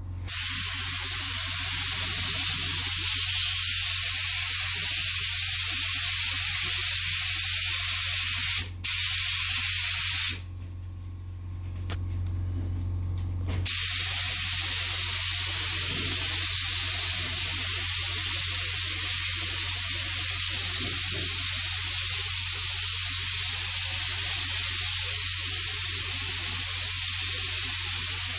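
Paint spray gun hissing steadily as it sprays, with the trigger let go twice: for a moment about 9 seconds in and for about three seconds a little later. A steady low hum runs underneath and is clearest in the pauses.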